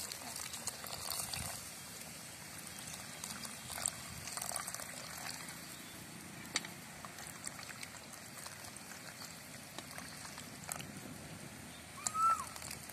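Tamarind water poured from a steel vessel into a pot of fish curry, trickling and splashing into the liquid. Near the end a short high chirp.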